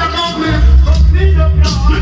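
Loud music played over a sound system, with a heavy, steady bass line and a voice over it.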